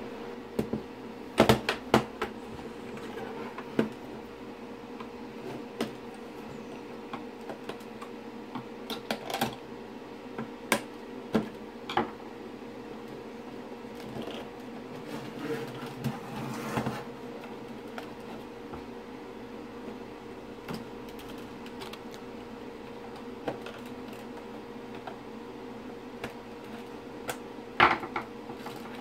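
Irregular plastic clicks and knocks as a Citroen C5 instrument cluster is handled and the plastic clips on its rear housing are unclipped by hand, with a steady hum underneath.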